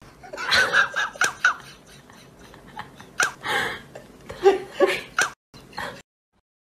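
A person giggling and laughing in three short bouts of quick bursts, breaking off near the end.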